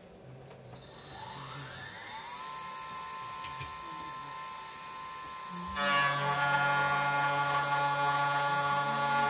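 A Chinese 2.2 kW spindle on a DIY CNC router spins up with a rising whine and settles to a steady high tone. About six seconds in, its worn 4-flute carbide end mill bites into steel bar and a much louder ringing cutting noise takes over. The owner calls it horrendous, blaming the dull cutter and the bed with its thin aluminium coolant tray resonating.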